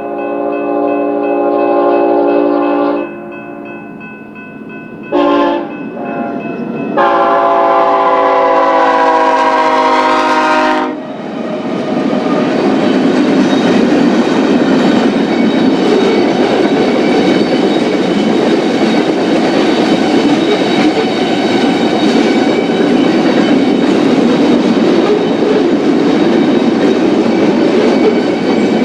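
A BNSF freight locomotive's air horn sounds a long blast, a short one about five seconds in, and a second long blast ending about eleven seconds in. The train then rolls past with a loud, steady rumble and clatter of wheels on rail.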